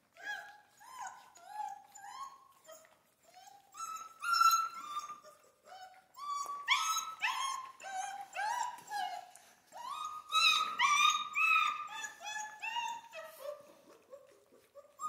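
Central Asian Shepherd puppies whining and whimpering in short, slightly falling cries while they jostle at a food bowl, several puppies at once. The cries come closer together and louder after the first few seconds.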